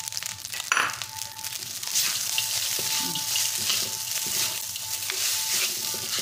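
Rice stir-frying and sizzling in a wok, tossed and scraped with a spatula; the sizzle grows louder about two seconds in as the stirring picks up. A brief sharp knock comes a little under a second in.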